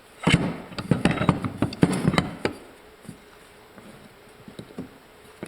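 Clicks and knocks of metal steering gear parts being handled and set down, a quick busy run for about two and a half seconds, then only a few faint taps.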